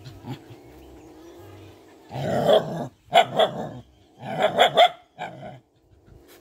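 A cat's low, drawn-out growl for the first couple of seconds, then dogs barking in several loud bursts from about two seconds in.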